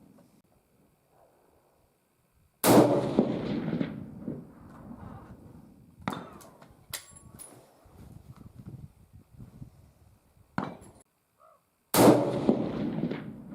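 Two shots from a 7mm Remington Magnum single-shot falling-block rifle, about nine seconds apart, each a sudden loud crack with a long rolling echo. Between them come sharp metallic clicks and a ringing clink, as the action is opened, the empty case comes out and a fresh round goes in.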